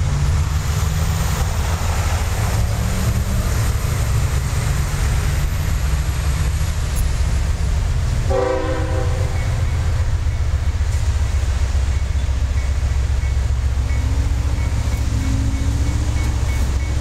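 Diesel locomotives of a CSX freight train, led by a GE ES40DC, running with a low, steady rumble as the train pulls out. There is a short horn blast about halfway through.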